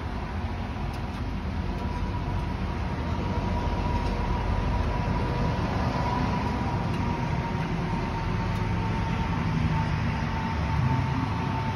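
Steady low mechanical rumble with a thin steady whine above it, growing a little louder after the first few seconds.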